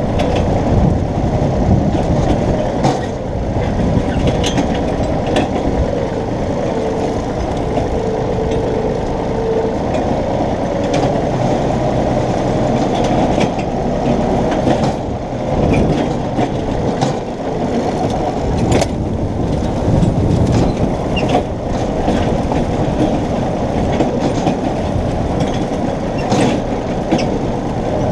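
Compact tractor's engine running steadily while mowing, with scattered clanks and rattles through it.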